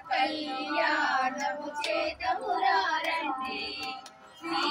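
A group of women singing a devotional song together, the voices breaking off briefly near the end.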